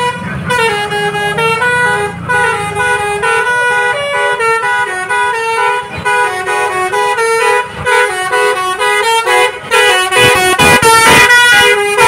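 Basuri telolet bus horn playing a tune of stepping notes that runs on without pause, getting louder over the last couple of seconds as the bus comes close. A low engine rumble sits under the first few seconds.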